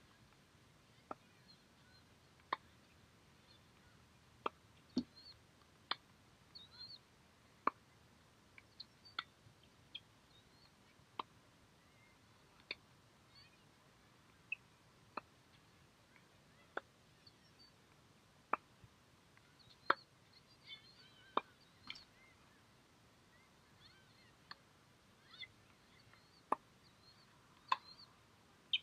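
Tennis balls struck by rackets and bouncing on a hard court in a practice rally: sharp pops at an irregular pace of about one a second, over faint bird chirps.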